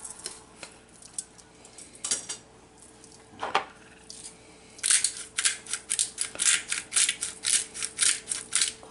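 A fork knocking against a ceramic plate as a chuck roast is turned over, then a glass seasoning shaker shaken over the meat in quick, even shakes, about four a second, through the second half.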